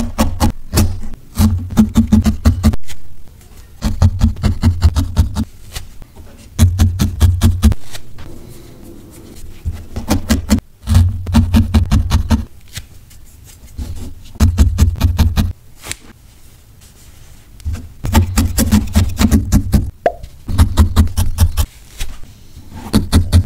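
Felting needle stabbing repeatedly into wool on a foam pad: runs of quick, soft pokes lasting a second or two each, separated by short pauses.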